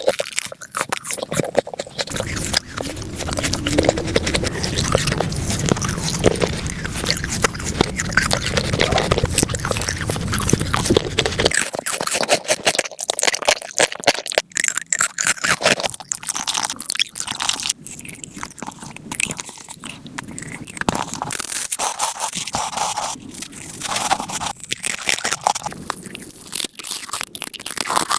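Close-miked eating of crunchy food, crunching and chewing. For the first eleven seconds or so the crunching is dense and continuous, with a heavier low rumble. After that comes a sudden change to a series of separate crisp bites and crunches.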